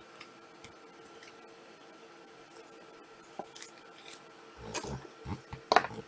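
Trading cards and packs being handled on a table: faint clicks and slides of card stock, then a cluster of louder taps and rustles near the end, over a faint steady hum.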